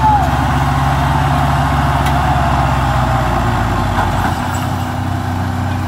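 Tractor's diesel engine running steadily while pulling a load of sugar cane; about four seconds in, the deepest part of its note drops away and the engine runs on at a lighter pitch.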